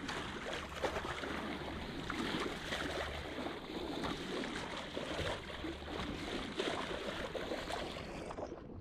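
Water gurgling and splashing along the hull of a sailboat under way, a dense rush full of small crackles and splashes.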